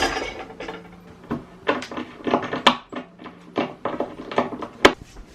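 Irregular clicks and knocks of flat-pack desk parts and fittings being handled, with one sharp knock near the end the loudest.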